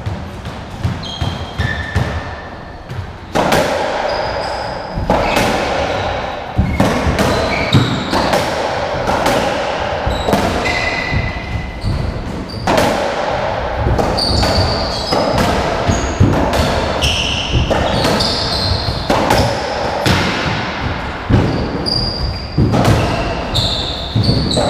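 A racketball doubles rally on a squash court: a quick run of sharp smacks as the ball is struck by rackets and hits the walls and wooden floor, with short high shoe squeaks on the court floor in between.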